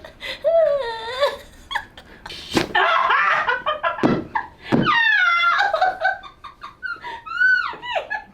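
A chiropractic patient crying out in high, arching yelps and whines mixed with laughter, with two sharp cracks or knocks about two and a half and five seconds in.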